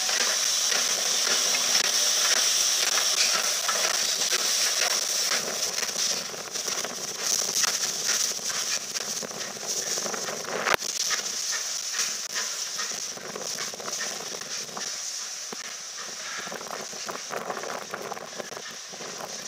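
Steam hissing from the LMS Princess Coronation Class Pacific No. 46233 'Duchess of Sutherland', a steady hiss that slowly fades, with one sharp click about eleven seconds in.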